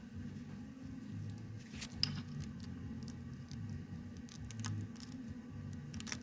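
Stainless braided hose and metal AN fitting being handled and worked together: scattered light scratching and metallic clicks, one sharper click about two seconds in, over a steady low hum.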